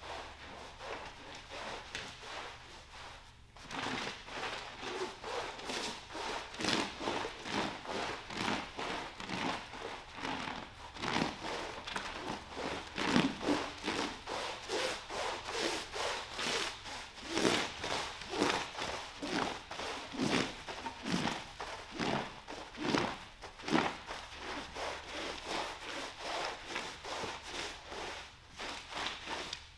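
Long-handled scrub brush working lather into a wet rug's pile in rhythmic scratchy strokes, about two a second. The scrubbing starts a few seconds in.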